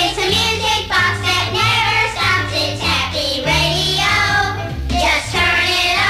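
A sung radio bumper: voices singing a jingle over music with a moving bass line.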